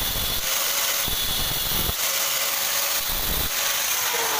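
A small power grinder with an abrasive cut-off disc cuts a screwdriver slot into the end of a steel drill-chuck shaft: a harsh grinding hiss over a steady motor whine, the grinding sound shifting a few times. Near the end the whine falls in pitch as the grinder winds down.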